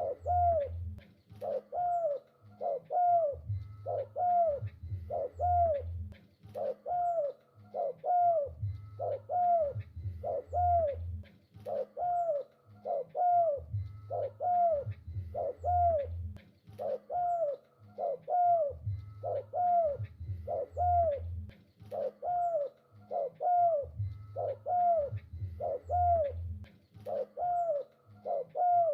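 Spotted dove cooing: a steady run of short, arched coo notes, roughly one a second, with a low hum coming and going underneath.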